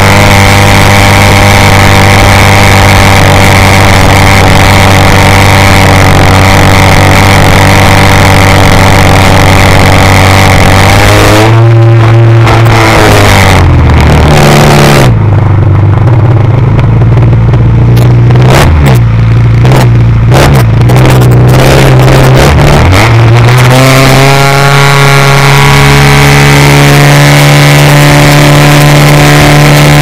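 Engine of a Seagull Ultimate radio-controlled aerobatic model plane, heard from a camera on board. It runs steadily at high throttle, is throttled back about twelve seconds in and runs low and uneven for around ten seconds, then is opened up again and holds a steady, higher note.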